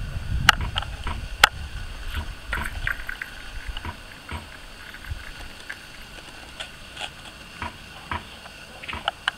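Great Danes and their puppies milling close together: scattered short clicks and knocks, with a low rumble in the first two seconds or so.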